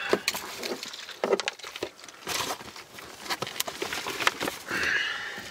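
Camping gear being handled and packed by hand: an irregular string of clicks, knocks and rustling.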